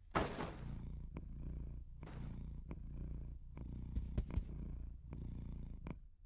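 A cat purring steadily while its head is stroked, the purr dipping briefly with each breath.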